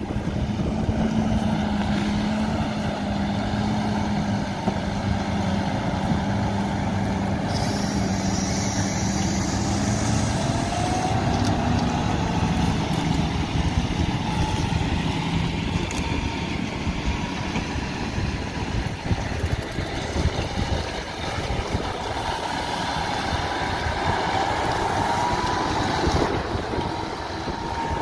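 John Deere tractor's engine working steadily under load as it pulls a multi-furrow reversible plough through stubble, passing close by.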